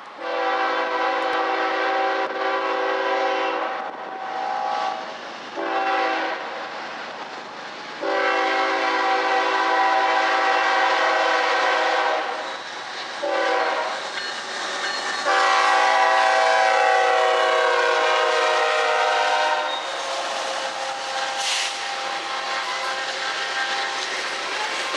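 Kansas City Southern diesel locomotive horn sounding five chord blasts, the last four in the long-long-short-long grade-crossing pattern, the final long blast dipping slightly in pitch as the locomotive passes. It gives way to the steady rumble and clatter of coal hopper cars rolling by.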